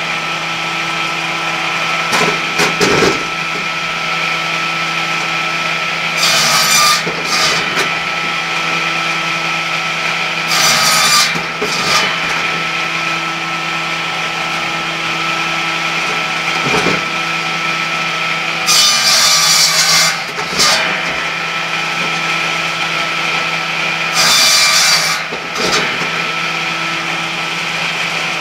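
Homemade cradle-type firewood circular saw, a 600 mm blade at 1600 rpm belt-driven by a 4 kW motor, running with a steady hum. Four times the blade cuts through a log, each cut a loud rasping burst of a second or two, with a few short knocks in between.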